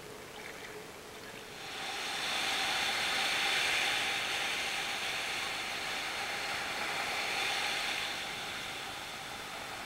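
Surf washing up a sandy beach: a steady rush of foaming waves that comes in suddenly about two seconds in, after a quieter start, and eases a little near the end.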